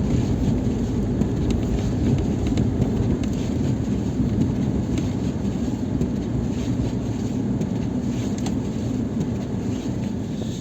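Lada Niva Travel's 1.7-litre four-cylinder engine running under steady load as it drives through snow, with a constant low rumble of tyres and snow under the wheels.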